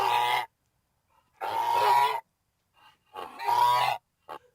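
Recorded goose call: three harsh, drawn-out honks about a second and a half apart, grunting enough to be taken for a pig.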